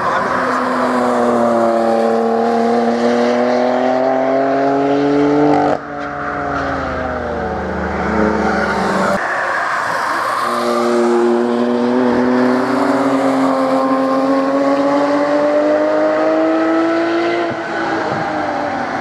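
Sports car engines under hard acceleration as cars drive past, in three edited passes. The first car is a BMW coupe whose engine note climbs steadily for about six seconds and cuts off abruptly. A second car's note then falls away for a few seconds. After another cut, a Porsche 911 GT3 RS's flat-six climbs in pitch for about eight seconds.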